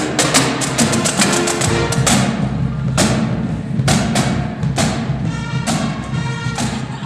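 Upbeat music driven by a heavy drum beat, with strong hits about once a second, getting gradually quieter in the second half.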